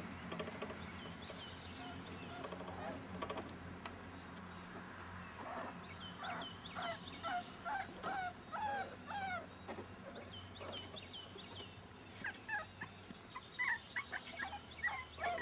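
A litter of boxer puppies whimpering and yelping: short, high cries that rise and fall, two or three a second, in one spell from about six to ten seconds in and another near the end.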